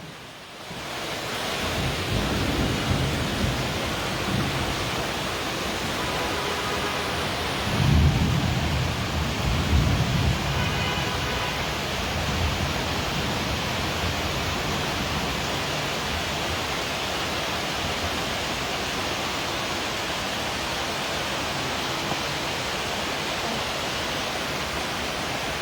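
Heavy rain pouring steadily, with a low rumble of thunder about eight seconds in that swells and fades over a few seconds.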